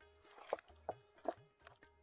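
Gloved hand squishing raw chicken legs through a wet yogurt, pickle and lemon marinade in a metal tray, three squelches about half a second apart. Faint background music underneath.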